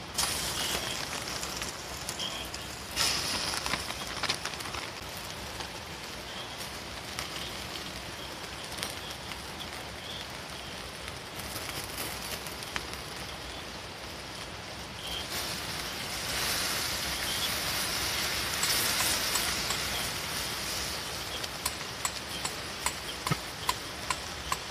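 Garlic and mushrooms sizzling in oil in a stainless frying pan over a wood fire. The sizzle swells loudly about three seconds in and again for a few seconds past the middle. The fire crackles with sharp pops near the end.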